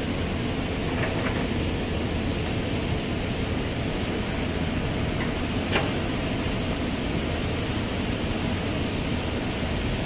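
Old hydraulic excavator's diesel engine running steadily as the machine swings its boom and works the bucket, with a few short clanks, the sharpest about six seconds in.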